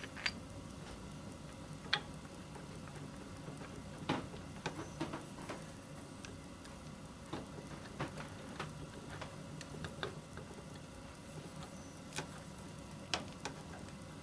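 Irregular clicks and light taps from hand plane parts being handled and fitted, metal and wooden pieces knocking together, about a dozen over the stretch with a few coming close together a little after four seconds in.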